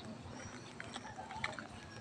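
Faint street ambience with scattered soft ticks of footsteps on a paved road while walking.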